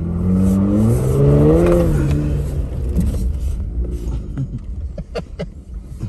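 Jeep Gladiator's engine revving up under throttle for about a second and a half, then easing off, over a steady low rumble, with a few sharp knocks later on.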